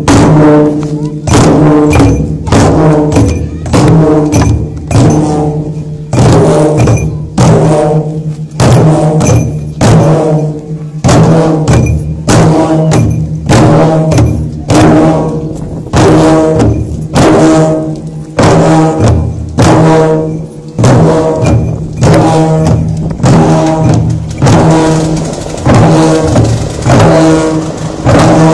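Several chyabrung, the Limbu double-headed barrel drums, beaten together in a steady dance rhythm, a pattern of strokes that repeats about every second and a half.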